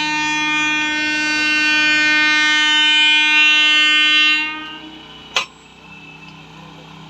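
A train horn sounding one long, steady blast that fades out a little over four seconds in. A single sharp click follows about a second later.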